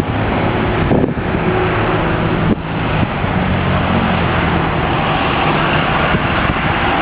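Steady low engine hum under loud wind rushing over the microphone.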